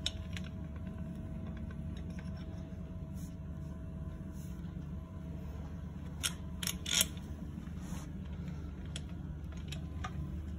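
Small metal clicks and taps as propeller blade bolts are handled and fitted into a composite propeller hub by hand, the loudest a quick run of clicks about six to seven seconds in, over a steady low hum.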